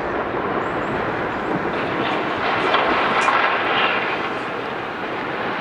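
Steady rolling rumble of smokestacks collapsing in a demolition implosion, the drawn-out noise after the explosive charges fire, with a few faint cracks about two to three seconds in.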